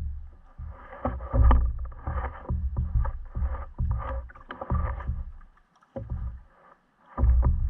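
Water lapping and slapping against a fishing kayak's hull, with irregular low rumbling bumps; it nearly drops out twice in the last couple of seconds.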